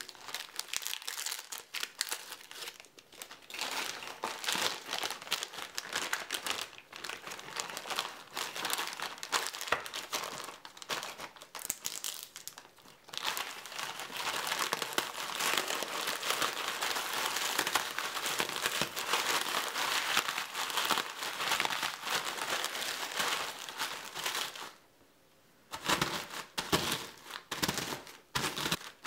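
Plastic crinkling as a wrapped roll of Marie biscuits is torn open by its tear strip and the biscuits are handled into a zip-top plastic bag. After a brief pause near the end, a few separate sharp cracks as a wooden rolling pin breaks the biscuits inside the bag.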